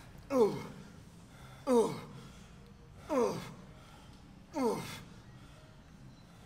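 A lifter's strained vocal exhalations on four reps, about one and a half seconds apart, each a short voiced breath falling in pitch, the sound of effort through a hard set.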